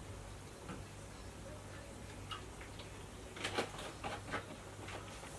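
Milk poured from a plastic bottle into a glass mixing bowl, faintly. A cluster of light plastic clicks and taps follows a bit past halfway through as the milk bottle is handled and lifted away.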